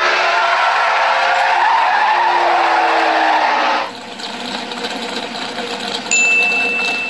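Cartoon race car sound effect: an engine with falling pitch and tyres skidding on dirt as the car slides to a stop, loud for about four seconds and then dying down. A steady high tone starts about six seconds in.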